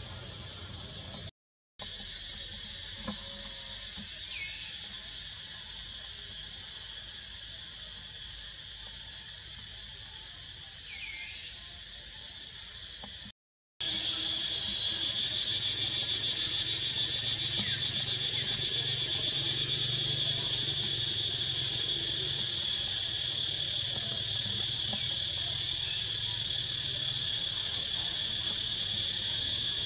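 Steady high-pitched chorus of insects buzzing and trilling, with a few short chirps in the first half. It drops out briefly twice and is clearly louder after the second break.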